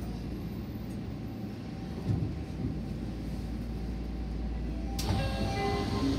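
Interior sound of a Nagoya Municipal Subway N1000-series train: a steady low rumble with a knock about two seconds in. About five seconds in, a sharp click is followed by a run of short, steady electronic tones at several pitches.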